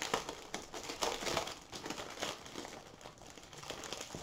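Clear plastic packaging of a diamond painting kit crinkling and rustling in the hands as it is handled and opened, an irregular run of small crackles.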